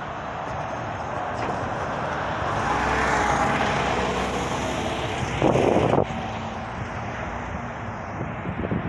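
Street traffic noise as a city bus drives past close by, its engine swelling for a couple of seconds. A short, loud rush of noise comes a little after halfway.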